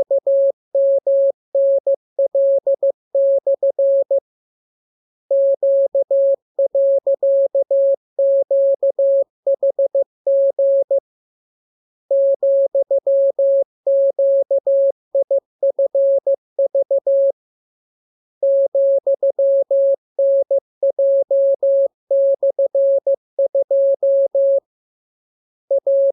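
Morse code sent as a single tone of about 600 Hz, keyed on and off in dots and dashes, in a radiogram of five-character practice groups with pauses of about a second between groups.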